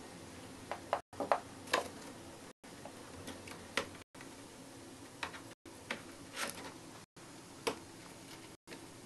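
Light, irregular clicks and taps as a hamster moves a hard biscuit over a wooden floor and into a cardboard box, over a faint steady hum. The sound drops out briefly about every second and a half.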